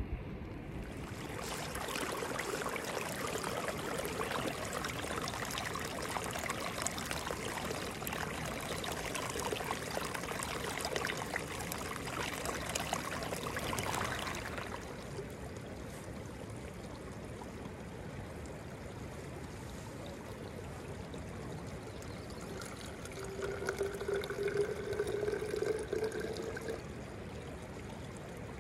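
Running water: a steady rushing for about the first half, then a quieter trickle as water is filtered into a bottle, with a short, slightly rising tone for a few seconds about three-quarters of the way through.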